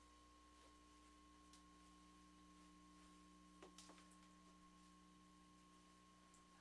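Near silence: a faint steady electrical hum with a thin high whine, and a couple of faint soft clicks about four seconds in.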